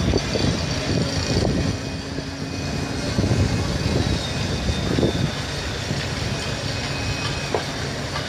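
Large mobile crane's diesel engine running steadily during a lift, a low rumble that swells a little now and then.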